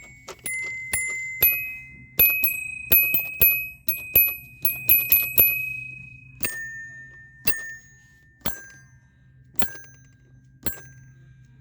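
A small bell-like metal or glass object struck again and again, each tap ringing with a clear high tone. The taps come quickly for the first five seconds or so, then slow to about one a second, and the ringing pitch steps lower twice.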